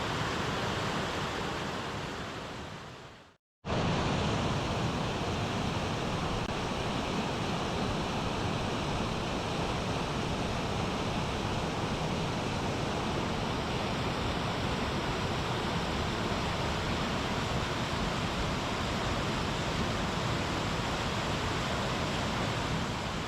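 Steady rushing roar of a waterfall's falling water. It fades out and drops to silence for a moment about three and a half seconds in, then comes back just as steady.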